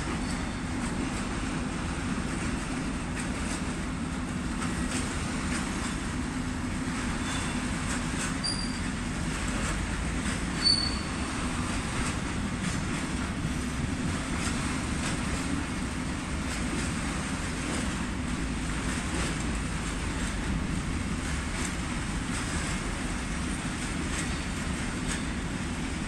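Freight train of cement silo tank wagons rolling steadily past, a constant low rumble with wheel clicks over the rails. Short high wheel squeals break in about eight and a half and about eleven seconds in, the second the loudest.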